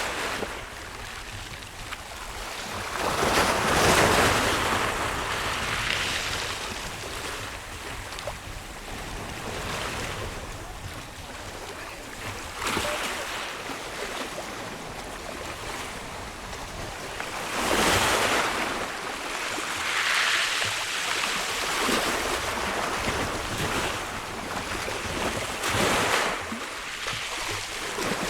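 Rough sea surf: waves breaking in repeated swelling crashes, the loudest about four seconds in and again around eighteen seconds, over wind buffeting the microphone.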